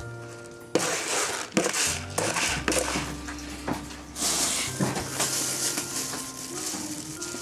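Rustling, crunching noise in repeated bursts with a few sharp clicks, starting about a second in, over soft background music.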